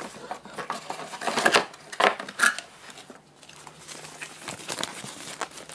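Cardboard box and packaging rustling and scraping as a compact camera is worked out of its box. A few sharper scrapes come in the first couple of seconds, then quieter rustling.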